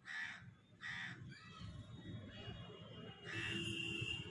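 A crow cawing outside, three short harsh caws: one at the start, one just under a second in, and one near the end.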